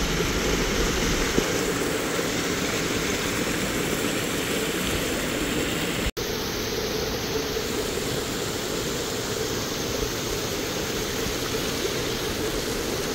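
Shallow rain-fed runoff rushing over flat stone slabs and spilling down low rock ledges in small cascades: a steady rush of water, broken by a momentary gap about six seconds in.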